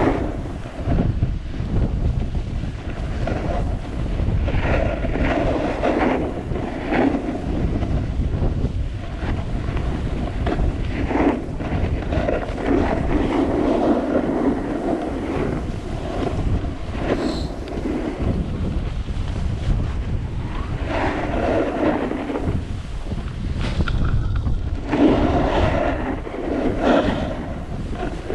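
Wind buffeting the microphone during a fast descent of a ski slope, with edges scraping over the snow in turns that come and go every few seconds.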